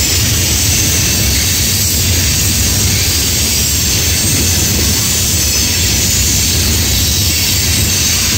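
Freight train's covered hopper cars rolling past on the rails: a loud, steady rumble and rail noise that does not let up.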